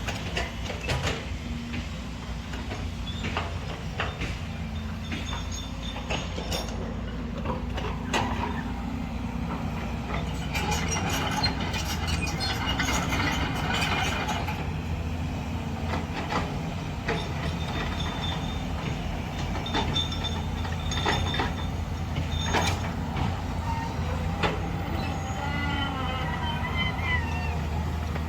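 Volvo excavator working: its diesel engine runs steadily, with repeated metallic clanks and knocks. There is a rougher, noisier spell about ten seconds in, and short squealing tones near the end.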